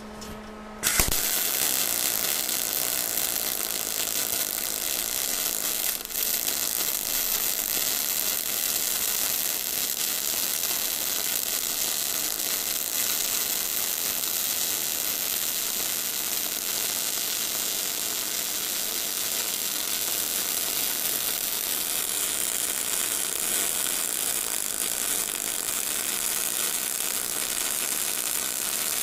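MIG welding arc from a Bimarc MIG-500 semi-automatic welder, an even crackle that starts about a second in. The arc is running steadily without spitting, now that the welder's missing phase has been reconnected and the voltage and wire feed have been turned down.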